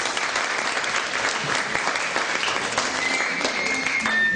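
Theatre audience applauding, a dense patter of many hands clapping.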